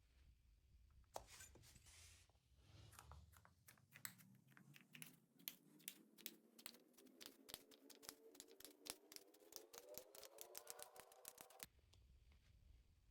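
Faint sticky clicks and pops of slime being pressed and stretched, many in quick irregular succession. A faint tone rises steadily in pitch from about three seconds in and stops shortly before the end.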